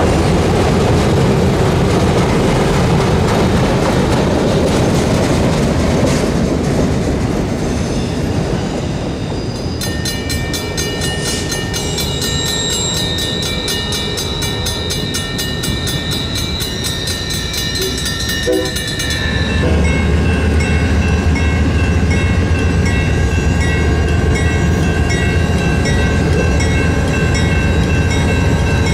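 Freight train passing: steady rolling noise of the cars and wheels, joined about ten seconds in by several steady high tones. From about twenty seconds in, a heavy low rumble takes over, with a high tone repeating over it.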